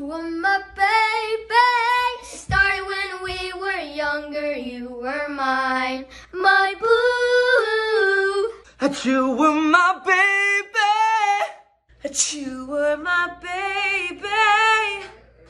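Unaccompanied singing in a few short sung phrases cut one after another, by children's voices and then a woman's voice.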